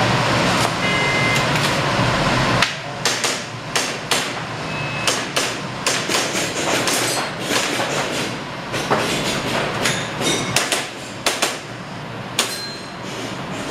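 Airsoft pistol firing a long, irregular string of sharp cracks as the shooter runs the stage, starting about three seconds in. BBs smack into the targets.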